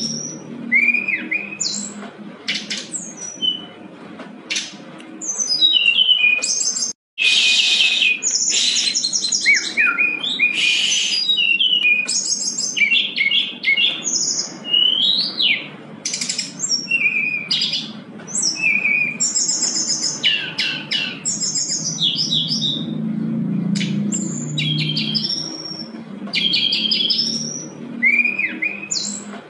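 A brown-chested jungle flycatcher singing a long, varied song of quick trills and rising and falling slurred whistles, phrase after phrase. The song breaks off for an instant about seven seconds in.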